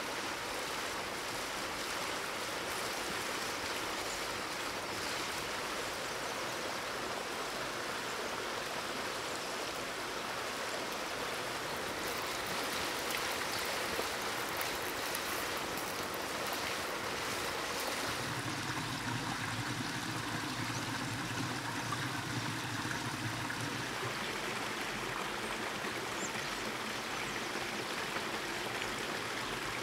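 Bacon strips sizzling on a grill grate over charcoal: a steady hiss, with crackling pops of spitting fat in the middle stretch. A little past halfway the hiss turns duller and a low hum comes in.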